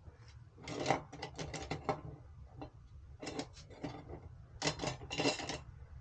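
Three bursts of rapid clicking and rattling from small hard parts being handled, over a low steady hum.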